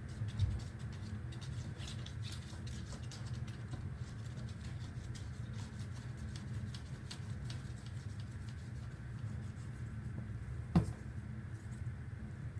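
Glue stick rubbed across a paper plate in many short scratchy strokes, over a steady low hum. A sharp knock a little before the end, the loudest sound, as something hard meets the table.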